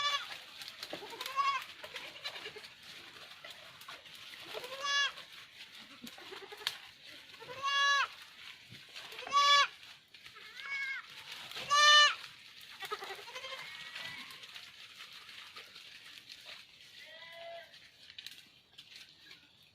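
Goats bleating, about a dozen separate calls from several animals at different pitches. The loudest calls come in the middle, and the calls grow fainter and sparser near the end.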